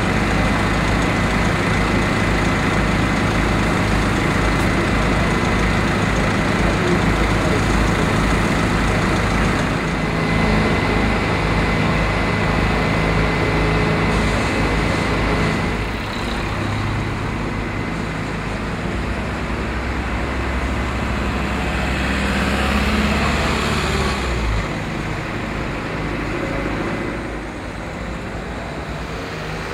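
Heavy diesel engine of a fire service aerial ladder platform running steadily at the scene, a deep drone with a thin high whine over it for the first ten seconds or so. The drone changes about sixteen seconds in, and road traffic passes near the end.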